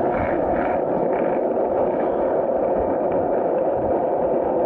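Skateboard wheels rolling over asphalt: a steady rolling rumble.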